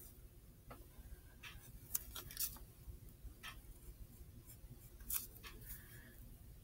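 Pencil scratching on drawing paper in short strokes: a handful of brief scratches, the loudest about two seconds in and again about five seconds in, over a faint low room hum.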